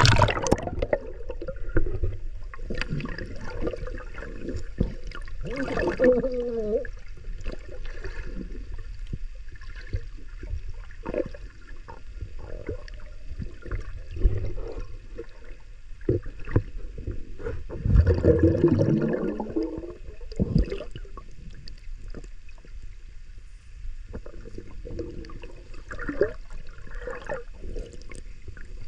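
Underwater sound heard through a camera's waterproof case: muffled rumbling and gurgling of shallow seawater with scattered knocks as a diver works the seagrass bottom, and a louder surge about 18 seconds in.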